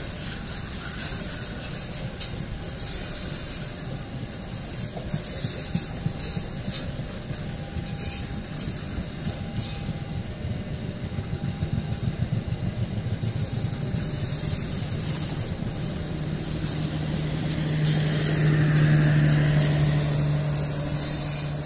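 Passenger coaches of a train rolling past close by, their wheels rumbling and clicking over the rails. In the last few seconds the steady drone of the generator car's diesel engine swells as it passes.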